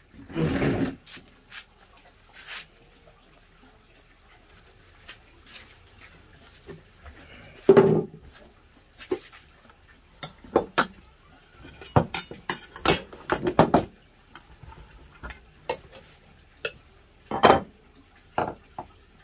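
Aluminium pots and lids knocked and set down on a wooden table, with a metal spoon clinking in a stainless steel bowl: scattered clinks and knocks, with a quick run of them about twelve to fourteen seconds in.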